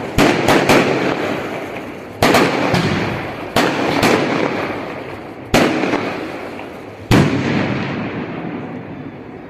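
A series of about nine sharp bangs, some in quick pairs, each trailing off in a long rolling rumble. The last bang comes about seven seconds in and its rumble fades away.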